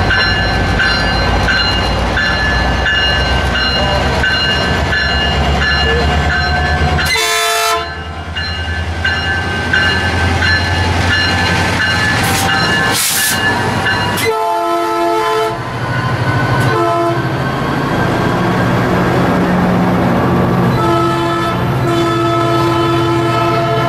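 Metrolink MP36PH-3C diesel locomotive pulling out of the station with its engine running, sounding its horn in several blasts: a short one about seven seconds in, a longer one at about fourteen seconds, a brief one soon after, and a long blast from about twenty-one seconds on. The wheels and coaches rumble past close by.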